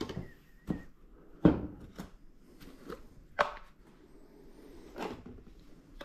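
Irregular knocks, taps and thuds of things being handled and moved about, about six in all, the loudest about one and a half seconds in and a sharp one about three and a half seconds in.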